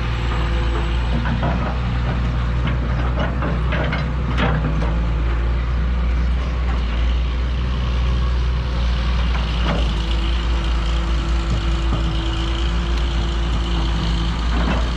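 Diesel engines of backhoes digging, running steadily with a low rumble and a few knocks. A steady tone joins about ten seconds in.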